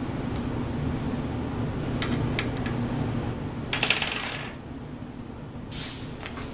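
Small steel tools and parts clinking against each other and the bench: a few light clicks, then a bright metallic jingle about four seconds in and another clink near the end. A steady low hum runs underneath and drops away after the jingle.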